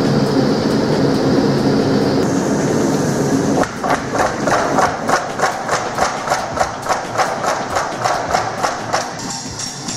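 Forge burner running with a steady rush, then a power hammer striking a red-hot steel bar. The blows come in a quick, even rhythm of about three a second, starting a little under four seconds in and stopping about nine seconds in.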